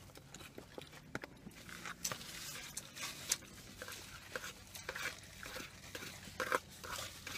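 Faint eating sounds: chewing and mouth noises, light clicks of a plastic fork in a foam takeout container, and brief rustles of a paper napkin.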